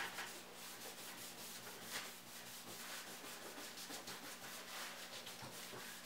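A cloth dampened with isopropyl alcohol rubbing back and forth over a microwave's painted door and frame. The strokes are faint, quick and scratchy as the old red paint dust is wiped off before spray painting.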